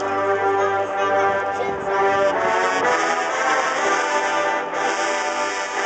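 Marching band brass section playing sustained chords, with trombones prominent, the held notes changing every second or so.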